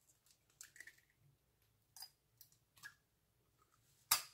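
An egg being cracked and opened over a ceramic plate: faint taps and shell crackles, then a sharper click near the end.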